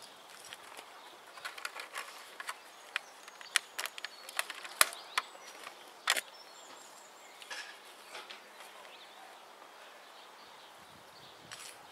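Metal hand trowel digging and scraping into stony soil, a run of sharp clicks and scrapes in the first half with the sharpest strikes near the middle, then only soft rustles of soil being worked by hand.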